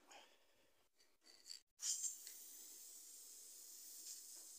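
Aerosol can of VHT copper gasket cement spraying onto a copper head gasket: a steady hiss that starts sharply about two seconds in and keeps going.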